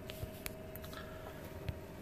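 Quiet truck-cab background: a faint steady hum with a thin steady tone, broken by a couple of small light clicks.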